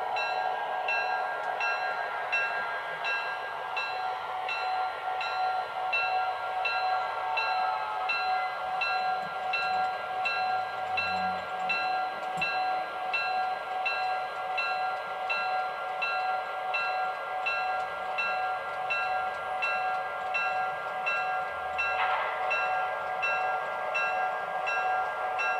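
Onboard sound of an O-scale GP9 diesel locomotive model: the locomotive bell ringing steadily, about one and a half strokes a second, over the steady running sound of the diesel engine as the model moves off.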